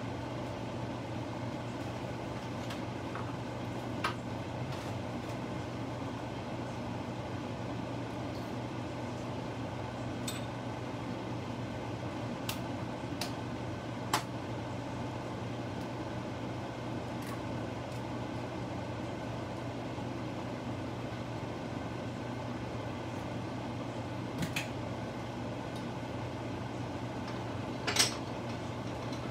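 Steady hum and fan hiss of the electric cooker under the pot, with a few faint clicks and clinks scattered through.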